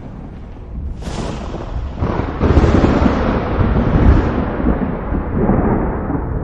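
Thunder: a crack about a second in, then a long low rumble that swells from about two and a half seconds, peaks near four seconds and slowly dies away, over the hiss of rain and wind.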